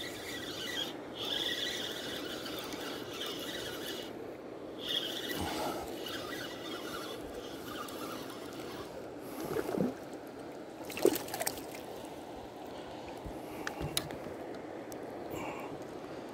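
Spinning reel being cranked to retrieve a lure: a high whirring squeal that comes in spells over the first few seconds. Later come a few short knocks, the loudest about eleven seconds in.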